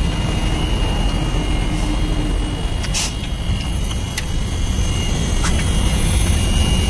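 Mercedes truck's diesel engine running steadily, driving the AC compressor while refrigerant is charged, with a faint steady high whine above the rumble and a few light clicks.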